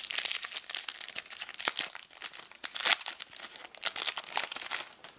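Wrapper of a trading card pack crinkling and crackling as it is opened, with many quick crackles.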